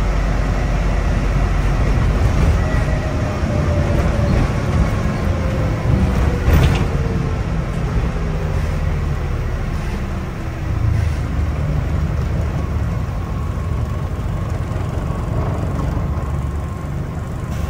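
Scania N94UD double-decker bus heard from inside on the move: a steady engine drone with a whistling turbo, its faint whine sliding down in pitch over the first few seconds. A single knock comes about six and a half seconds in.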